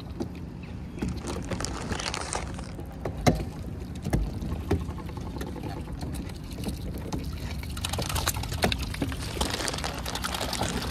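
Water lapping and sloshing against a floating plastic pontoon, with scattered taps and knocks from mute swans pecking and shuffling on its surface.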